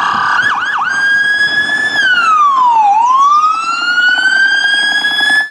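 Police car siren: a few quick yelps, then a wail that holds high, falls for about a second and rises slowly again, cutting off suddenly at the end.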